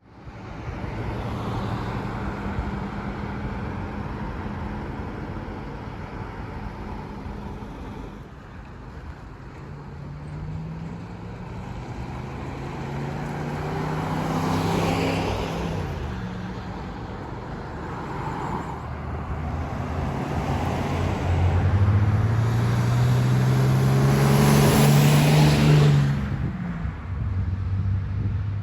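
Road traffic, with motor vehicles driving past. Two louder vehicles pass, one about halfway through and one near the end, their engine pitch rising and then falling as they go by.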